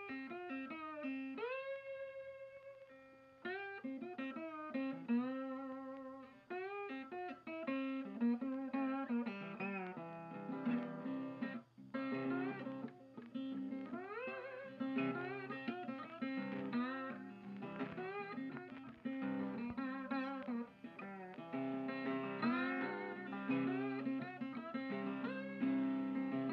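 Background music: a guitar playing a melody whose notes slide up into pitch, joined by a repeating lower line about a third of the way in.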